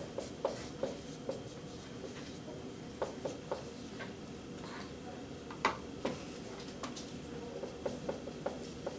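Dry-erase marker writing on a whiteboard: short, irregular strokes and taps of the tip on the board, over a steady low room hum.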